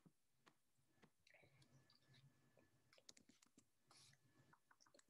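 Near silence with very faint, scattered clicks of computer keyboard typing.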